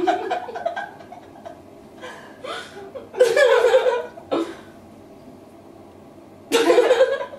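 Two women laughing in several separate bursts, chuckles and open laughter with short pauses between. The loudest bursts come about three seconds in and near the end.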